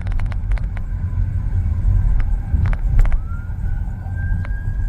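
Steady low road and engine rumble heard from inside a moving car, with a few sharp clicks. About three seconds in, a distant ambulance siren begins, its wail rising and holding.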